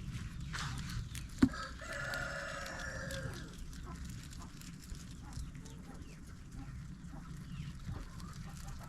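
A rooster crows once, one call of about two seconds, starting about a second and a half in, just after a sharp knock. Faint scattered clicks follow.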